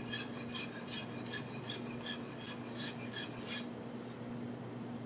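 Bob Kramer Essential Series 10-inch chef knife slicing chives against a wooden cutting board: an even run of short, crisp chops, about three a second. The chopping stops a little past halfway through, with one last cut shortly after.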